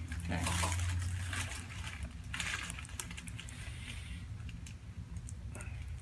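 Faint rustling and small scattered clicks of hands shifting a lying patient's head against a paper-covered headrest. A low hum runs through the first second or so.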